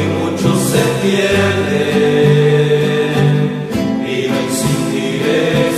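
A rondalla playing a Christian song: acoustic guitars with a group of voices singing.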